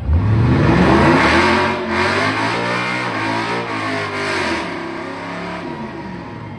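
Pickup truck's engine revving hard during a burnout. The pitch climbs steeply in the first second, then holds high and wavers while the rear tyres spin against the pavement, and eases off after about five seconds.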